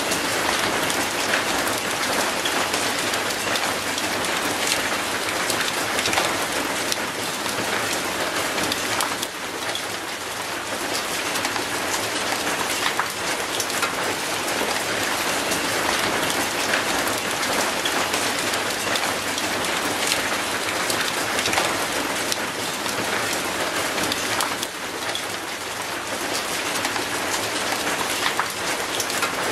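Steady rain falling on a concrete path and an old rusty metal gate: an even wash of rain with many individual drops striking.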